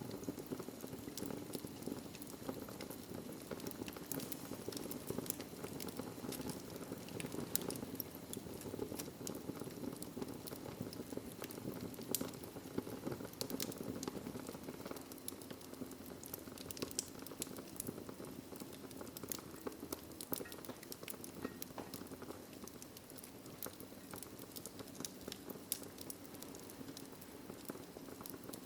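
Wood fire burning in a fireplace: a steady low rush of flames with frequent sharp crackles and pops throughout.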